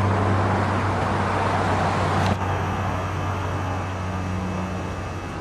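Road traffic rushing past, fading slightly, over a steady low hum.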